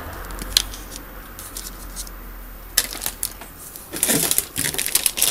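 Plastic model-kit part trees (sprues) being handled and moved on a tabletop: a few sharp clicks, then a busier run of plastic clattering and rustling over the last second or so.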